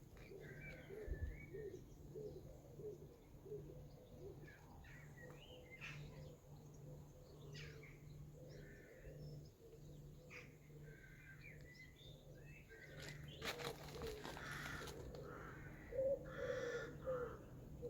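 Faint birdsong: short chirps and low repeated cooing calls, over a steady low hum, with a few sharp clicks and knocks toward the end.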